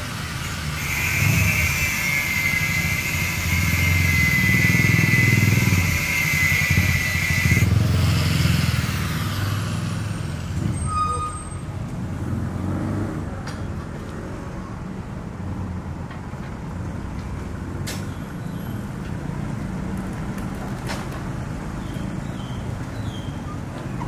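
A motor vehicle passing on the wet street: a low engine rumble that swells and fades over about ten seconds, with a steady high hiss that cuts off about eight seconds in. After it, quieter street background with a few faint clicks.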